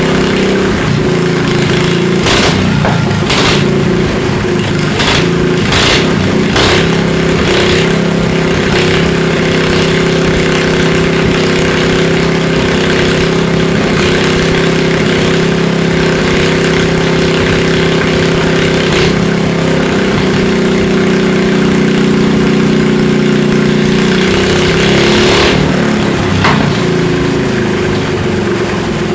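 Predator 459 cc single-cylinder engine on a chopper motorcycle running steadily on the bench. Several sharp clicks or knocks sound over it in the first several seconds, and its note shifts slightly about two-thirds of the way through and again near the end.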